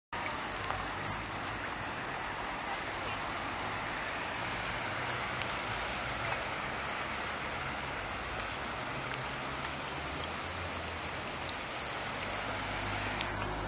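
Steady rushing water noise, with a faint low hum underneath and a few light ticks near the end.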